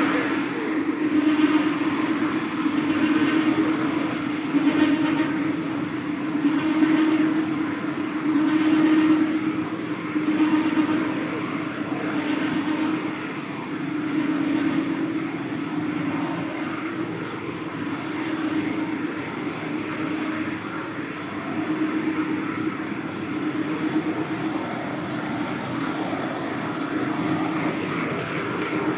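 PP packing-strap extrusion line running: a steady machine drone with a strong low hum and faint high-pitched whines, swelling and easing slightly in level.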